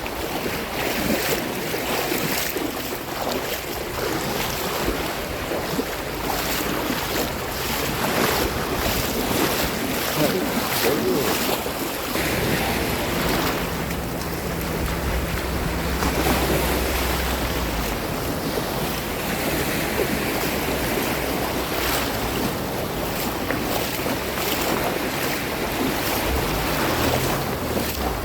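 Sea waves breaking and washing up on the shore in a steady wash. Wind rumbles on the microphone partway through and again near the end.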